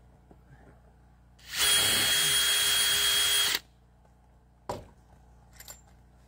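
Yellow-and-black DeWalt cordless drill/driver running at a steady speed for about two seconds, driving a screw through a stovepipe boot's metal flange into wood, with an even whine; it stops abruptly, and a single sharp click follows about a second later.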